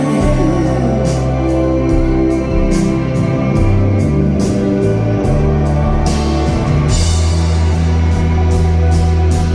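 Live rock band playing an instrumental passage: electric guitar and bass over a drum kit with steady cymbal hits.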